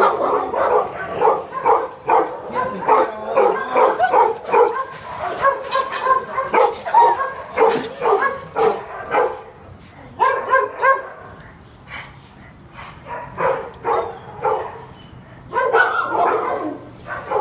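Dog barking over and over, about two barks a second, easing off for a few seconds after about ten seconds and picking up again near the end.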